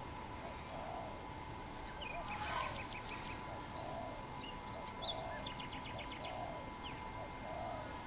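Dove cooing: low soft coos repeated about once a second, with two quick bursts of rapid high chirps from small birds, about two and a half seconds in and again around six seconds.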